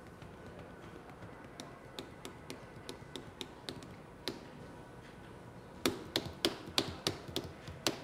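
Fidgety, impatient tapping in an even rhythm of about three taps a second, faint at first and clearly louder from about six seconds in.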